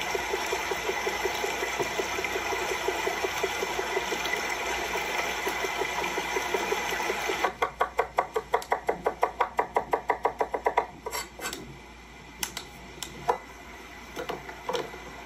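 Food-preparation sounds: a steady rasping, rubbing noise with a fast pulse. About seven seconds in it gives way to a run of rapid sharp knocks, about six a second, for some three seconds, then a few scattered knocks.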